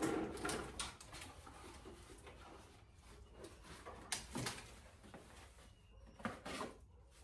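Handling noises from parts being worked on and moved about: rustling and clattering with a few sharp knocks, loudest at the very start, then again about four and six seconds in.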